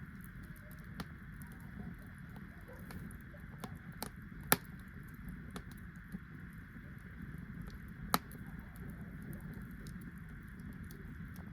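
Wood fire crackling, with scattered small clicks and two sharp, louder pops about four and a half and eight seconds in, over a steady low background rumble.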